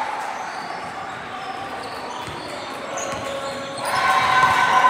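Basketball bouncing on a gym floor amid players' and spectators' voices echoing in the hall, with the noise getting louder about four seconds in.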